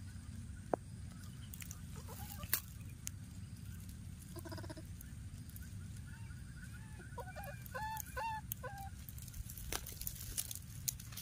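Baby macaque giving short, arching, high-pitched calls: one brief call about four and a half seconds in, then a run of several calls from about seven to nine seconds. A steady low rumble and a few sharp clicks lie underneath.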